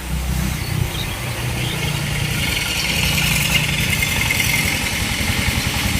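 A low, steady engine rumble, like a motor idling, with a hiss that grows stronger about two seconds in.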